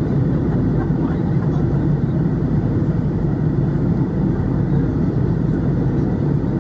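Steady cabin noise inside an Airbus A321neo climbing after takeoff: the even, low rumble of the engines and airflow heard from a window seat by the wing.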